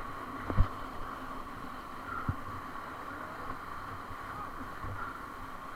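Steady rushing noise of river water and wind on the microphone, with two short low knocks, about half a second in and just after two seconds.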